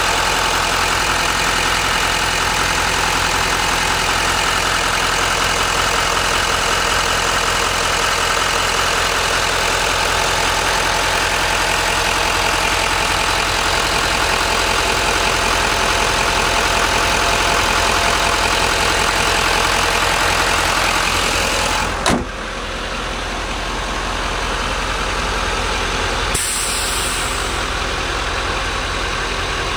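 Duramax 6.6-litre V8 turbo-diesel idling steadily with the hood open. About 22 seconds in there is a sharp click and the idle becomes quieter.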